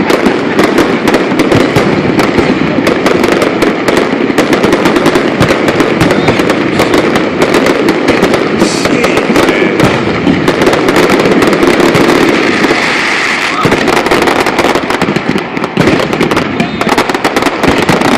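Fireworks display going off in a rapid, dense run of overlapping bangs and crackles, loud throughout.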